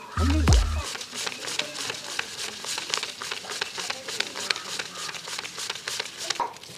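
Paper banknotes being counted by hand: a steady run of crisp rustling and flicking clicks. The tail of background music sounds in the first second.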